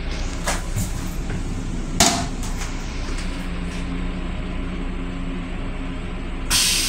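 Plastic toilet seat in a train restroom being lifted with light clicks, then knocking once, loudly, as it is raised, over the steady hum of the railcar. A steady hiss starts suddenly near the end.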